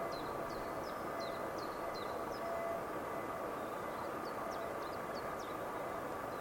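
A steady hum with faint steady tones in it, over which a small songbird repeats short, high chirps about three times a second, pausing for a second or so near the middle.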